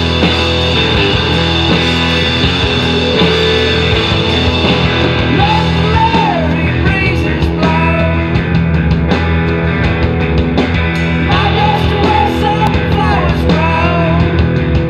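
Rock song playing, with electric guitar, bass and drums; a voice sings from about five seconds in.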